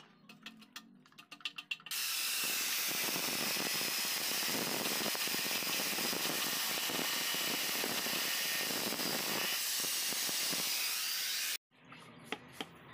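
Angle grinder cutting into a ball bearing to get it off. It starts about two seconds in after a few light taps, runs as a loud, steady grinding for about ten seconds, and cuts off suddenly near the end.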